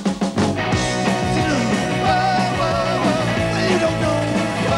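Rock band playing an upbeat new-wave song on drums, electric guitars and bass. It opens with a quick run of drum hits, then a wavering lead melody rides over the band.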